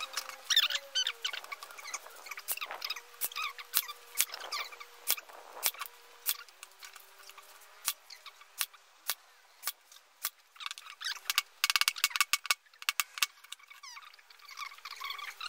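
A cordless Ryobi Airstrike brad nailer fires nails into a pine frame, giving a run of sharp snaps. They come about every half second, then in a quick burst about eleven seconds in. High squeaky chirps sound alongside.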